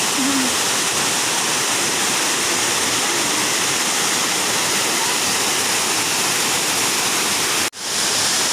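Small seasonal waterfall rushing steadily, running with rainy-season water. The sound cuts out for an instant near the end, then comes straight back.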